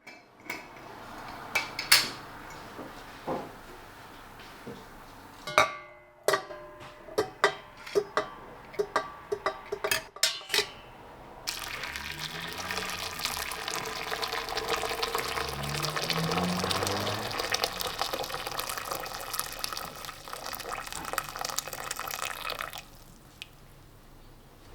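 Kitchen work: a run of irregular knocks and clicks, then water running into a container for about eleven seconds, its pitch rising as it fills, cutting off near the end.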